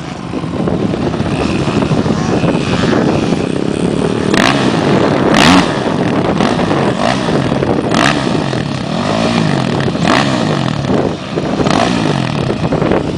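Several dirt bike and ATV engines running at once, revving up and down in repeated rising and falling sweeps. A few brief blasts of noise cut across them, the loudest about five and a half seconds in.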